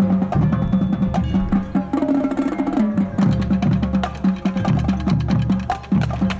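Marching band playing: rapid, dense drum strokes from the percussion section over sustained low brass notes that shift pitch a few times.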